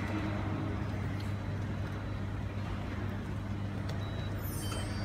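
Steady low rumble of road traffic, a bus among it, heard through a glass-fronted lobby. A few faint high tones come in near the end.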